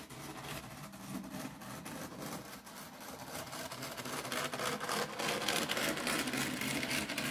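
Model train running: the custom-painted Bachmann Thomas tank engine, converted from a Bachmann Billy, runs along the track pulling its coaches, with its small electric motor whirring and its wheels running on the rails. The sound grows louder from about halfway through as the train passes close by.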